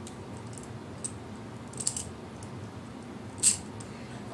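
A small clamp being handled and fitted, giving a few light clicks: one about a second in, a little cluster around two seconds, and the loudest single click about three and a half seconds in.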